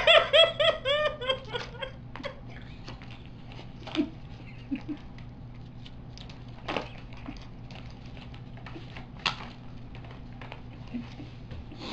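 People laughing with mouths full of bubble gum: a quick, loud run of ha-ha syllables in the first second and a half, then only scattered short, quieter laughs and mouth sounds.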